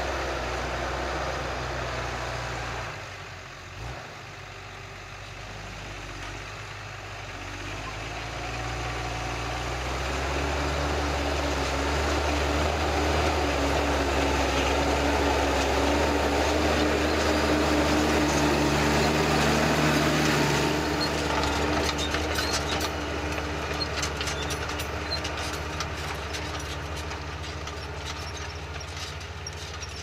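New Holland T6050 tractor's diesel engine working steadily under load while pulling a Kverneland reversible plough through rough ground. It drops in level about three seconds in, then builds to its loudest around the middle as the tractor comes close; in the last third a scatter of clicks and knocks from the plough and soil sits over the engine.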